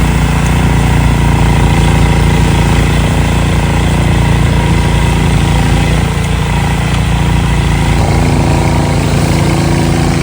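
Gas snowblower engine running steadily, freshly revived after five years unused.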